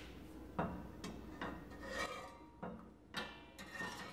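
Stainless steel ladle stirring heavy cream in a stainless steel pot, its bowl scraping along the pot in a run of short strokes about two a second, as rennet is stirred into the cream.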